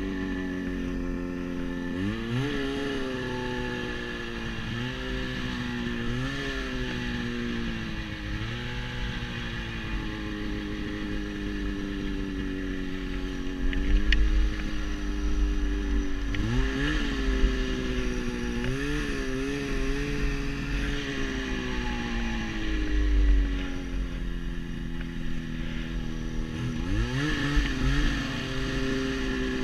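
Turbocharged Ski-Doo Summit XP snowmobile's two-stroke engine running under a rider's throttle. The revs rise sharply again and again and sag slowly in between.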